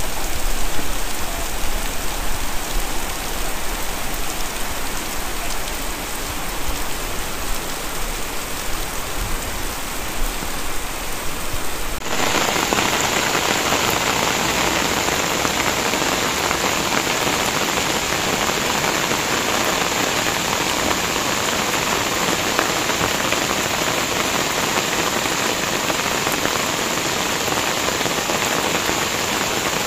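Heavy rain pouring onto a wet road and roofs, a steady dense hiss. About twelve seconds in it changes suddenly to a louder, brighter hiss.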